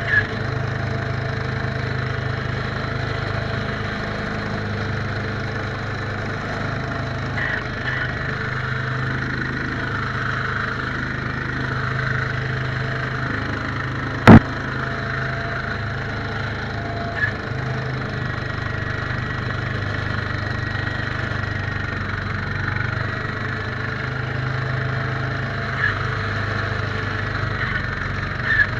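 1969 Case 442 garden tractor's engine running steadily while driving a front snowblower that throws snow. About halfway through there is one sharp, loud knock.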